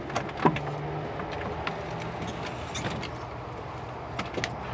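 Steady low hum of a car idling, heard from inside the cabin, with a few sharp clicks and knocks scattered through it, the loudest about half a second in.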